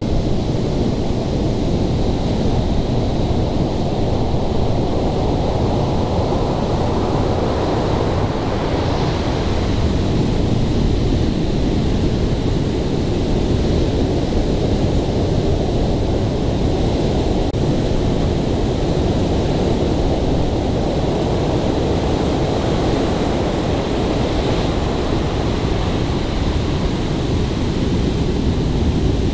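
Heavy hurricane-driven surf crashing and rushing in a loud, continuous rumble, with wind buffeting the microphone.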